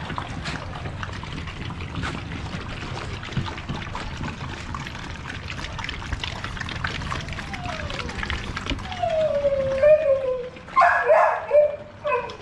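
American Bully puppies lapping water from a steel bowl, a constant patter of quick wet clicks. About two-thirds of the way through, a puppy whines in a long falling note, and a few louder puppy yelps follow near the end.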